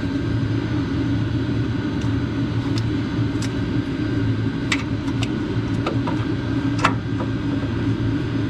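A steady low mechanical hum, with a few light metallic clicks and clinks as the coolant pump and its bracket are handled and fitted up to the truck's frame.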